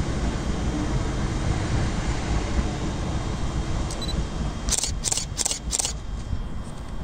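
A steady low rumble, with a quick burst of four camera-shutter clicks about a third of a second apart about five seconds in.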